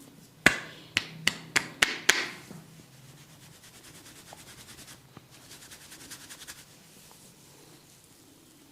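A barber's hands working on a client during a massage: six sharp snapping strikes in quick succession, coming faster toward the end, then a faint, fast, light rubbing patter.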